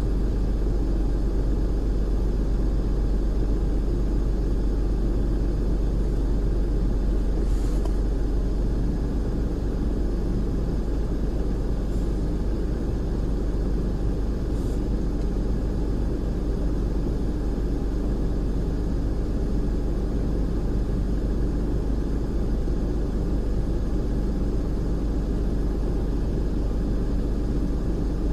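A steady low mechanical rumble, like a vehicle engine or machinery running, with a few faint brief clicks about a third and halfway in.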